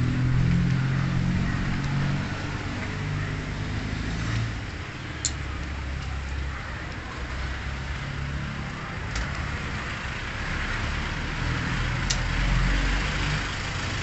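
Street traffic: vehicle engines running close by with a steady low hum, louder at the start and again near the end, plus a few short sharp ticks.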